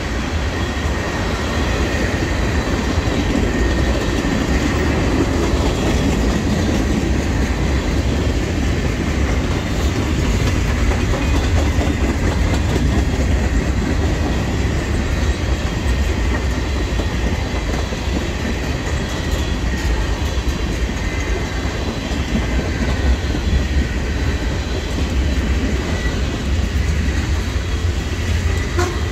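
Freight train of tank cars and covered hopper cars rolling past, a steady rumble with wheels clattering over the rail joints and a faint high ringing tone over it.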